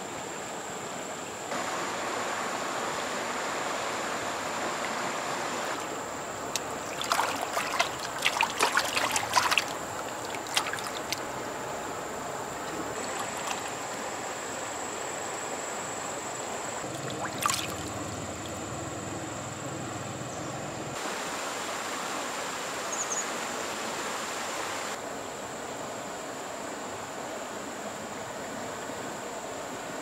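Steady trickle of water running into a muddy, water-filled pit. A quick run of sharp splashes comes about a quarter of the way through, and a single splash follows a little past halfway.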